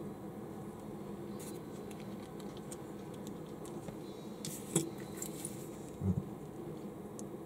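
Small plastic building-block pieces clicking and clattering as they are handled and picked over on a table, in scattered light ticks. The loudest is a sharper click just before five seconds in, with a short dull thump about a second later.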